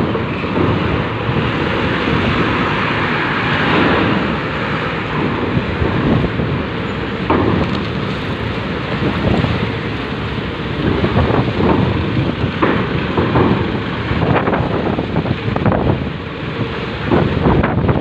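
Wind buffeting the microphone over the running of vehicles driving across a steel ramp onto a ferry, with a few short knocks scattered through it.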